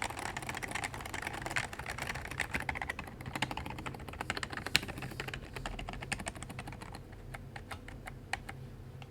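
Happy Hacking Keyboard KB02 being typed on fast, a dense patter of key clicks, its stabilizers freshly lubed to stop rattle. The typing thins to scattered keystrokes about seven seconds in.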